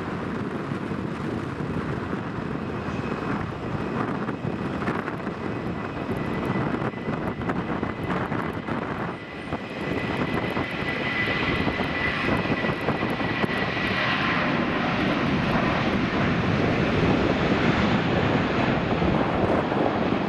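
Airbus A320-232's twin IAE V2500 turbofan engines at takeoff power during the takeoff roll, a steady dense jet noise with a high whine over it. It dips briefly about nine seconds in, then grows louder as the jet nears rotation.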